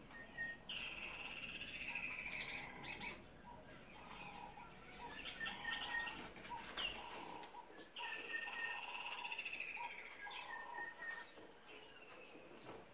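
A songbird singing: two long trilled phrases that slide slightly down in pitch, about a second in and again about eight seconds in, with shorter chirps and whistled notes in between.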